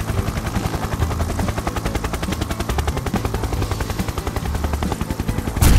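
Helicopter rotor sound effect: a fast, steady chopping pulse over a low hum, with a short loud burst near the end.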